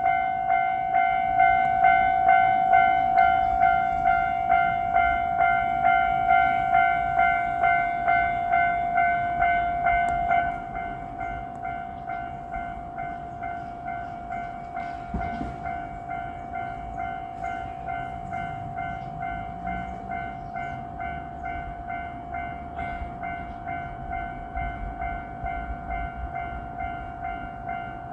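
Japanese railroad crossing warning bell ringing its electronic "kan-kan" at a steady pace of just under two strikes a second. It drops noticeably in volume about ten seconds in.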